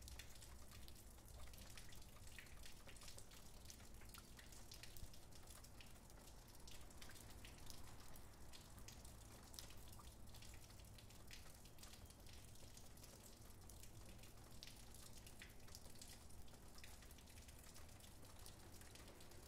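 Faint light rain: scattered drops pattering and dripping irregularly over a low background rumble.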